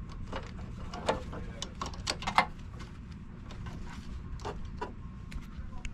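Irregular small clicks and rustling as wires are handled and their connectors pushed onto the terminals of an air-conditioner compressor contactor, over a low steady hum.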